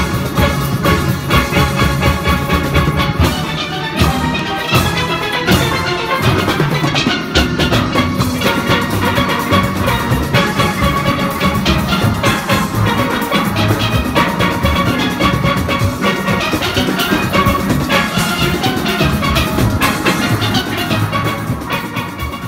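Background music with a steady beat, fading down near the end.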